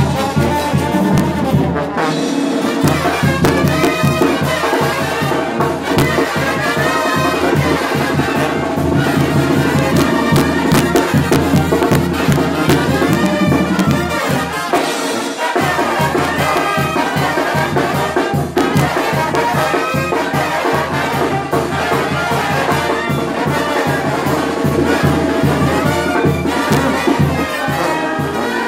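Brass band playing, trumpets and trombones over a steady beat.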